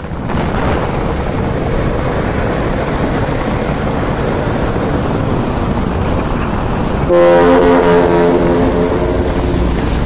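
Traffic and truck engine noise, then about seven seconds in a loud multi-note trumpet air horn sounds from a Hino FM dump truck, held for about two and a half seconds.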